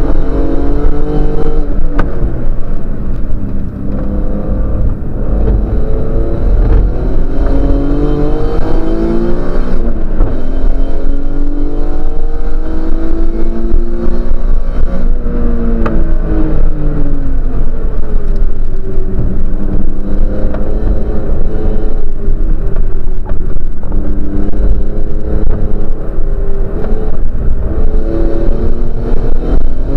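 Race car engine heard from inside the cabin, revving up through the gears and dropping back again and again as the car accelerates and brakes around the circuit, over a heavy steady low road rumble.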